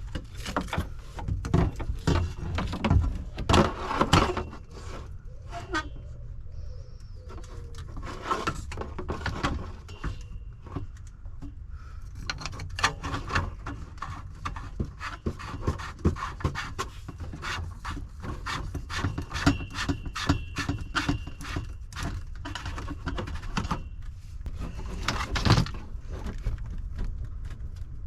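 Irregular clicks, knocks and rattles of parts and tools being handled during hands-on repair work, over a steady low hum.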